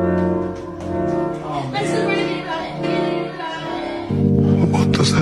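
Music: a melody of long held notes that step in pitch every second or so. About four seconds in, a louder, lower chord comes in and holds.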